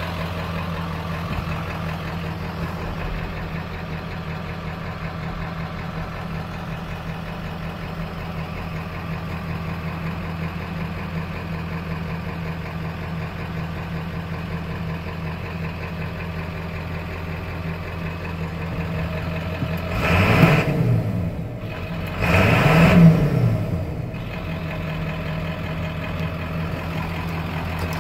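1996 Ford F-250's 7.3-litre Powerstroke V8 turbo diesel idling steadily, heard from inside the cab. Twice, about 20 and 23 seconds in, a louder engine sound swells up and falls away.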